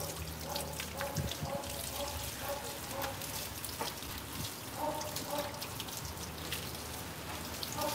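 Water from a garden hose splashing on a dog's coat and the wet concrete in many small drips and splashes, as the soap is rinsed out of the dog.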